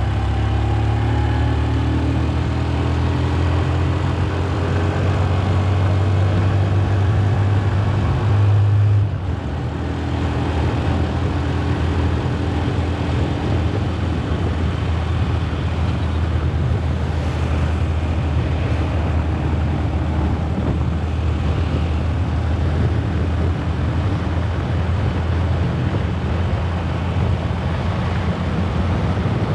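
Motor scooter ridden along a road, its engine running with wind rush over the microphone. The engine pitch rises steadily for about the first nine seconds as it speeds up, then the level drops suddenly as the throttle eases, and it carries on at a steady cruise.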